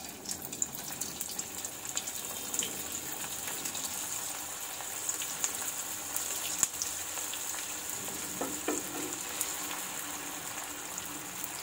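Vegetable Manchurian balls deep-frying in hot oil in a kadhai: a steady sizzle with fine crackling as raw balls are dropped in one after another. Near the end a metal spatula stirs them in the oil.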